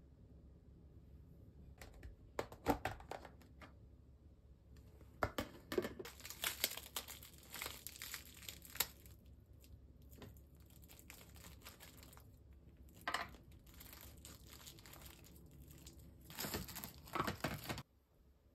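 Plastic cling film crinkling and rustling in several bursts as it is handled and unwrapped from a boiled egg.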